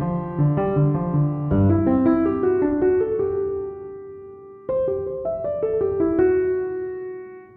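Background piano music playing held notes and chords. It fades down, then cuts and starts again abruptly about two-thirds of the way through.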